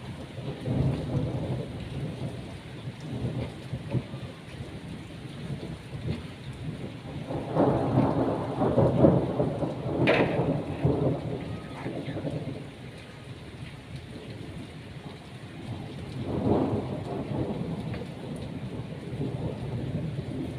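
Heavy rain pouring steadily, with rolling thunder swelling up about a second in, loudest in the middle with a sharp crack, and rolling again near the end.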